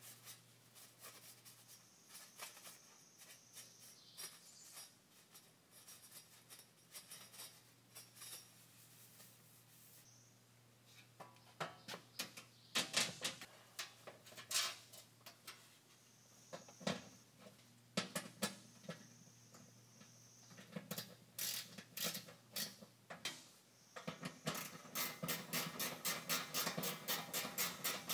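Gloved hands working inside an empty upright freezer cabinet: scattered knocks, scrapes and rattles of its shelves and liner. About three quarters of the way in these give way to quick, even back-and-forth rubbing at the top of the cabinet.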